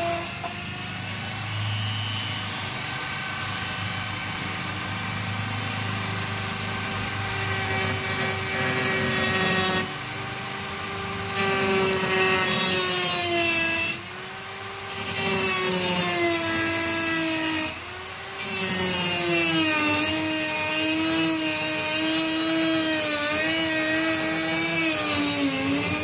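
Dremel rotary tool spinning up to its highest speed, its cutoff wheel cutting into a chest freezer's sheet-metal outer wall and plastic top trim. A steady high whine that drops in pitch and turns rougher while the wheel bites, easing off the cut briefly three times.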